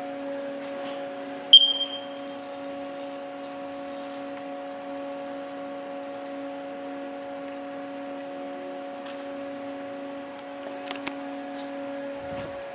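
Steady multi-tone electrical hum of a powered-up Haas VF-2 CNC vertical mill. About a second and a half in, a single sharp metallic ping rings briefly and dies away.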